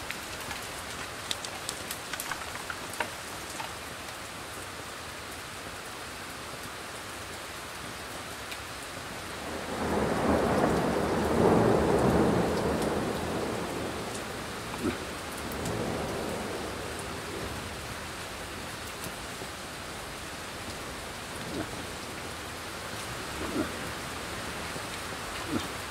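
Steady hiss of wind and rain in open scrub. About ten seconds in it swells into a louder rushing gust that fades over several seconds, with a few faint ticks here and there.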